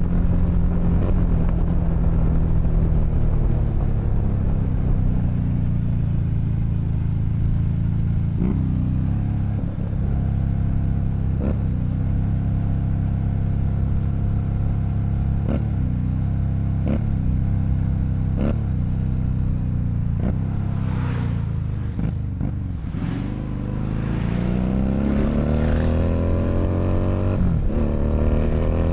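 Keeway SCR 250V motorcycle engine running through a custom shortened exhaust while riding. The engine note eases down, gives several short sharp blips in the middle, drops low a little after twenty seconds, then rises steadily as the bike accelerates near the end.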